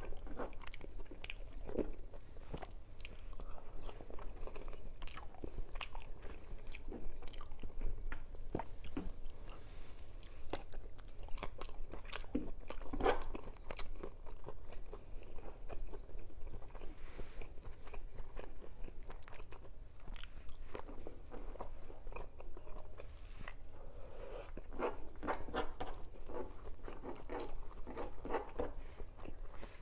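Close-miked chewing and biting with frequent crunches and sharp mouth clicks: a person eating rice, fried sausage and dried fish by hand.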